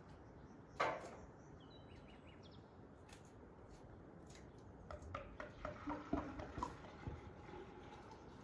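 Quiet outdoor garden ambience with faint bird chirps and a few light clicks and knocks, the loudest a brief rustling knock about a second in and a cluster of small clicks later on.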